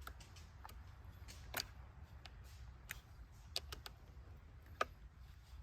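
Scattered light clicks and taps, about nine in all and unevenly spaced, from handling a chainsaw's bar and chain while fitting them onto the saw, over a faint low rumble.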